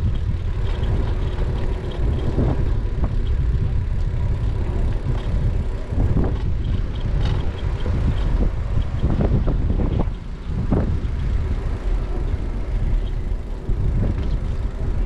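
Steady wind buffeting a bike-mounted GoPro's microphone while riding, with road rumble from the bicycle's tyres on concrete; a few brief louder sounds stand out around the middle.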